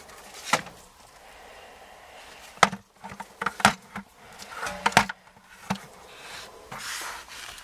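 Handling noise as the foil-jacketed flex duct is worked on: a few sharp knocks and clicks, some in quick pairs, with rustling in between.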